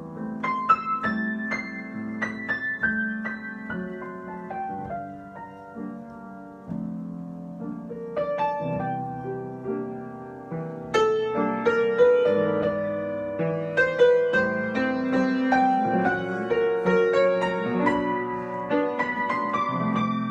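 Solo piano improvising: chords in the low-middle register with melody notes above. It eases into a quieter passage midway, then grows fuller and louder from about halfway on.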